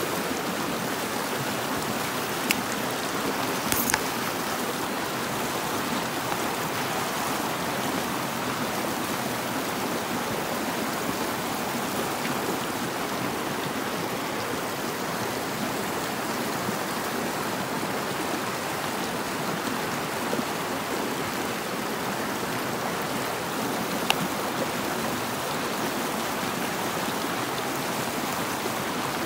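River water rushing and splashing steadily over boulders in a rocky stream. A few brief faint clicks break through it.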